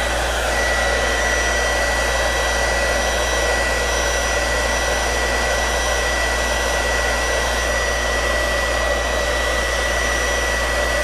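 Handheld hair dryer blowing hot air in a steady rush with a thin high whine, warming vinyl wrap so it will stretch over the fender.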